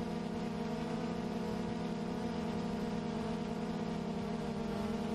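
Drone's electric motors and propellers buzzing steadily at a constant pitch, heard through its own onboard camera.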